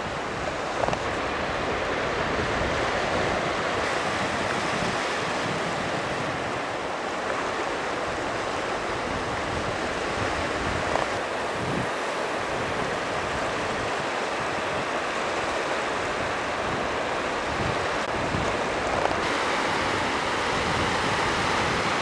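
Ocean surf washing steadily on a sandy beach, an even rushing hiss.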